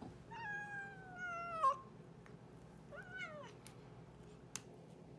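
Domestic cat meowing twice: one long meow falling in pitch, then a shorter meow about three seconds in.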